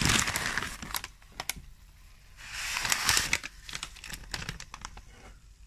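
Plastic noodle packet crinkling and rustling as bundles of thin wheat noodles are pulled out of it, in two spells with scattered small clicks between and after.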